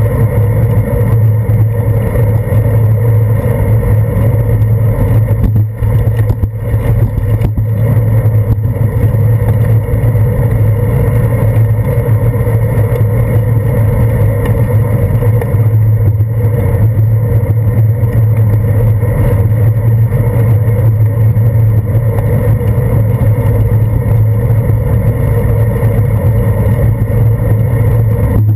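Loud, steady rumble of wind and road vibration picked up by a handlebar-mounted GoPro on a bicycle riding along a wet street.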